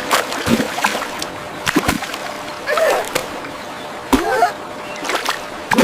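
Water splashing in a string of short splashes, with a few brief wavering high-pitched cries in between.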